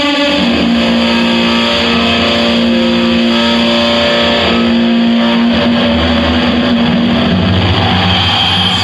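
Loud noise music: a dense wall of distorted noise with steady droning tones held underneath.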